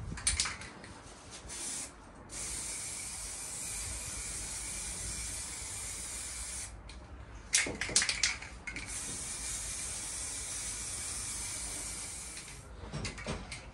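Aerosol can of anti-rust spray paint spraying in two long, steady hisses of about four seconds each, with a short cluster of clicks between them.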